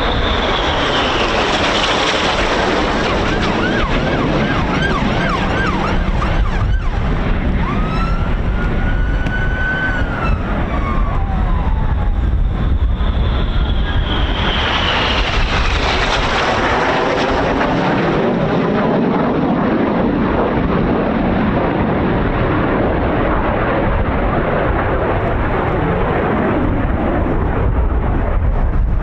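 BAE Hawk T1 jets of the Red Arrows flying past with a steady jet roar. Their engine whine falls in pitch as they go by, once near the start and again about halfway through, with other pitch glides in between. Wind buffets the microphone throughout.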